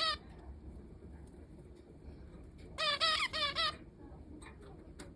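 A pet zebra finch calling: a quick run of about five short, repeated squeaky notes, each bending up then down, about three seconds in, the bird's own unusual call. A few faint clicks near the end.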